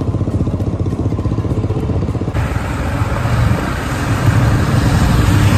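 Motorcycle engines running at a steady cruising speed in a group ride, with a rhythmic low rumble and wind hiss. The sound changes abruptly a little over two seconds in, with more hiss afterwards.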